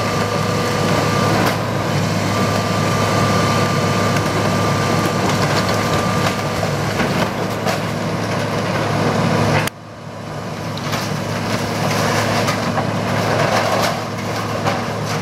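John Deere 230LC hydraulic excavator's diesel engine running under load with a steady hydraulic whine, as its bucket and thumb tear into a wooden building. Wood cracks and splinters and debris crashes down, most densely in the last few seconds.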